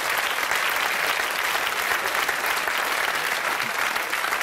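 Studio audience applauding, a steady, dense clapping that holds evenly throughout.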